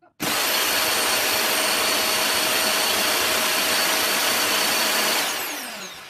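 Bare vacuum-cleaner motor on mains power starting abruptly and running at full speed with a loud, steady whine and rushing air. About five seconds in it is switched off and spins down with a falling whine.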